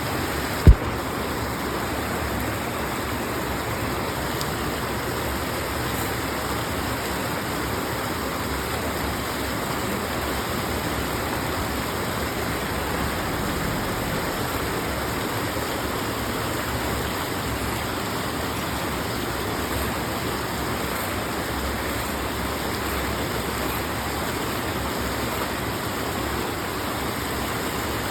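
Steady rush of creek water flowing, with one sharp knock just under a second in.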